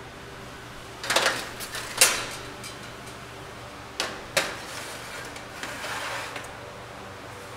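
Metal baking trays being slid onto the runners of a stainless-steel tray rack: a few sharp clanks, the loudest about two seconds in and two more about four seconds in, then a scraping slide of a tray near the end.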